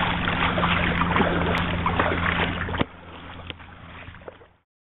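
Boat motor running steadily, with water and wind noise. About three seconds in, the sound drops suddenly to a faint hiss, then cuts out.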